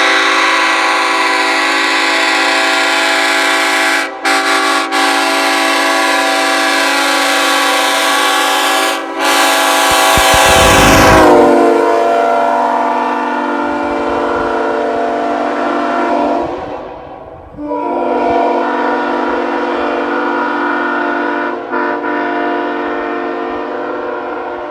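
Nathan Airchime K5HL five-chime train horn (bells 1L, 1, 2, 3, 4) sounding its deep chord in long blasts, with short breaks about 4 and 9 seconds in. Near 11 seconds a loud low rush comes in and the chord sags slightly in pitch. It then sounds weaker, cuts out briefly near 17 seconds and comes back on.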